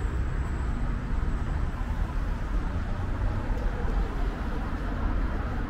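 Steady city street ambience: a low traffic rumble with a faint murmur of passers-by.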